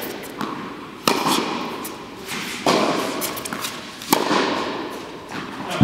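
Tennis groundstroke rally: four sharp strikes of racket on ball, about every one and a half seconds, with fainter taps between. Each strike echoes through a large indoor court hall.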